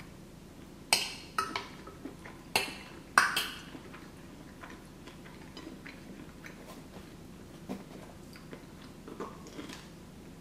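A metal fork clinks sharply against a glass baking dish a few times in the first few seconds, then quieter chewing and small mouth sounds follow, with a close microphone picking up each bite.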